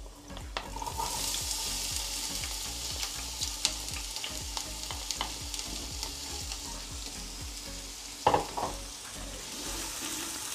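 Chopped red onion sizzling in hot olive oil in a stainless-steel frying pan. The sizzle sets in just under a second in as the onion hits the oil, and it keeps on while the onion is stirred with a spatula. A couple of sharp knocks come about eight seconds in.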